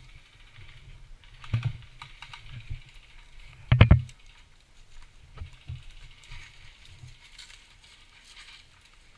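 Scattered sharp clicks and knocks, with a quick burst of about four loud cracks about four seconds in, typical of airsoft guns firing during a game.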